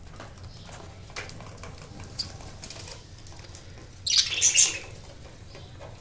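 Budgerigar wings flapping in one short flurry about four seconds in, over faint scattered clicks and scratches.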